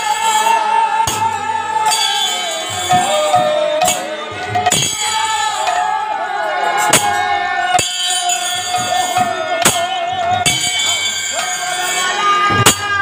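Harinam sankirtan: a voice singing a wavering devotional chant melody over jingling hand cymbals, with sharp strikes every second or two.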